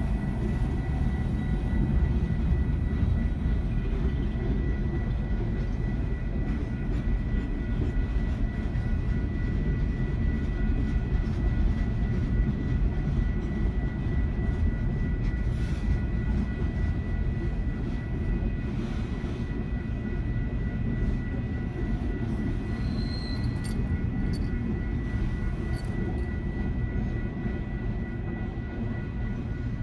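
Diesel-electric locomotives of a Union Pacific lashup running with a steady low rumble and a thin steady high tone through it.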